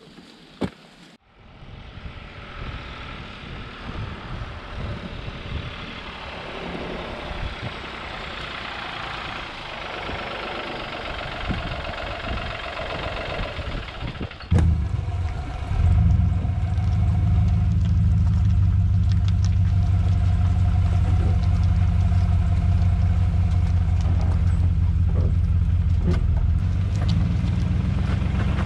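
A truck on the move with a steady rush of road and engine noise. About halfway it changes suddenly to a loud, steady, low engine idle.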